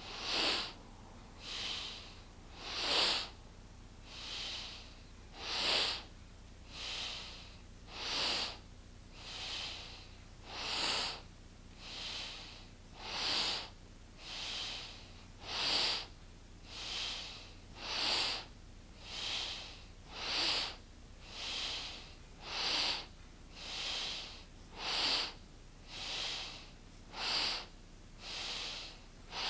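A woman breathing deeply and audibly in and out in a steady rhythm, one breath about every 1.2 seconds, stronger and softer breaths alternating.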